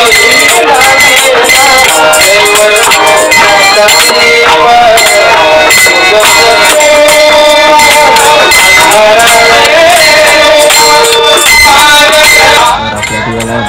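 Loud music with a melody over a fast shaker or rattle rhythm. It cuts off abruptly about a second before the end, giving way to quieter, duller sound.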